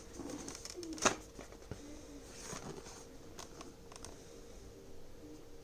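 Small plastic and cardboard packaging being handled: scattered clicks and short rustles, the sharpest a single click about a second in, over a faint steady hum.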